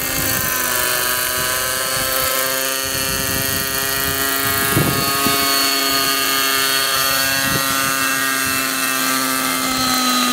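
Nitro-engined radio-controlled helicopter running, its small glow engine and rotor giving a steady high-pitched whine as it hovers low and sets down. The pitch begins to fall at the very end as the engine throttles back.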